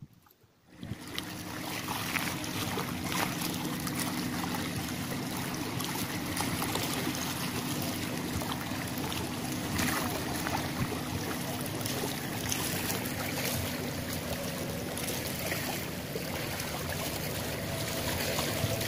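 Seawater lapping and washing against the boulders of a breakwater, beginning about a second in, with a steady low engine drone from a fishing boat out on the water.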